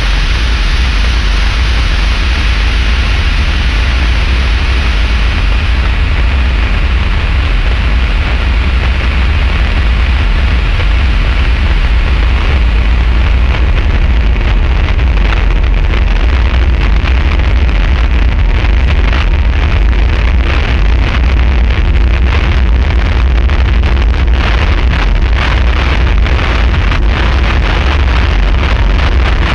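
Loud, dense noise drone of distorted electric guitar and contact-microphone noise: a heavy, steady low rumble under a wash of hiss. The top of the hiss dulls after a few seconds, and a thick crackle comes in about halfway through.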